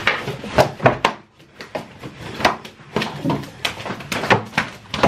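A rapid, irregular series of sharp slaps and smacks as two men swat at each other's arms and bodies in a play-fight.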